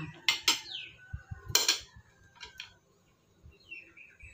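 Metal spoons and forks clinking against ceramic plates as food is served: a few sharp clinks in the first two seconds, the loudest about one and a half seconds in, then two lighter ones.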